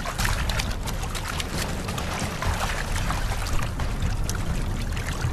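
Steady rushing of river water, with a deep rumble underneath.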